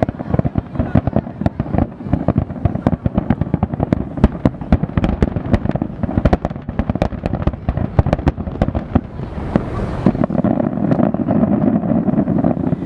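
Aerial fireworks barrage: a dense, rapid run of sharp bangs and crackles. About ten seconds in the bangs thin out and a steady rushing noise remains.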